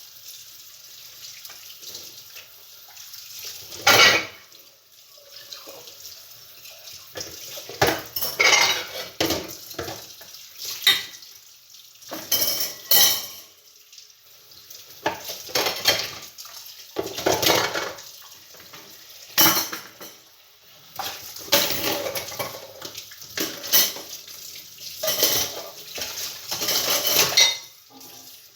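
Dishes being washed by hand in a sink: plates, pots and cutlery clattering and clinking at irregular intervals, with running and splashing water.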